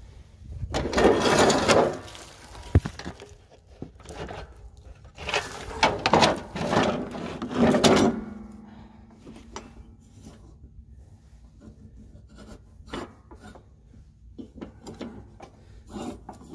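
Steel Cub Cadet mower deck being turned over on dry leaves and gravel: two loud bouts of scraping and rustling with one sharp knock between them, then quieter clicks and rustles as the belt is worked around the deck pulleys.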